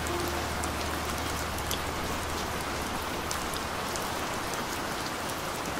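Steady rain falling: a continuous patter with scattered sharper drop ticks.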